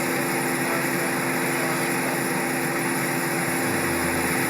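Steady motor noise: a constant hum with a rushing hiss that fades up just before and then holds level.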